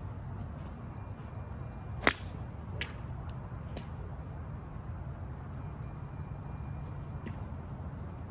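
Golf club striking a ball with one sharp crack about two seconds in, followed by a few much fainter clicks over a steady low rumble.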